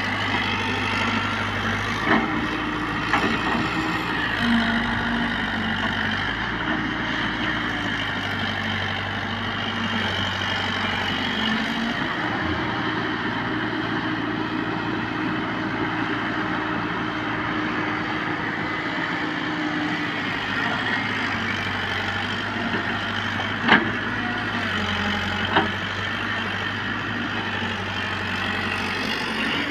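JCB tracked excavator's diesel engine running steadily as the boom and bucket work in sand, its tone shifting with the hydraulic load. Two sharp knocks come near the end.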